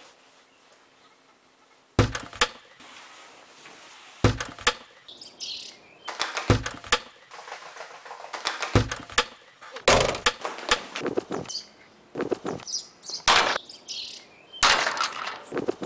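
Sharp knocks and clicks, the first about two seconds in, repeating roughly every two seconds like a beat and growing denser near the end, with birds chirping between them.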